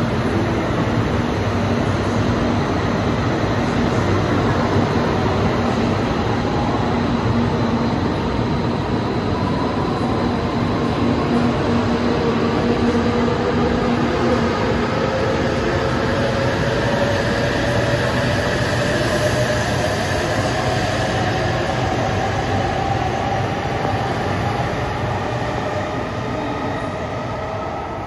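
JR East E956 ALFA-X Shinkansen test train pulling out of the platform and gathering speed. Its motor whine climbs slowly in pitch over a steady rolling rumble, then eases off near the end as the train draws away.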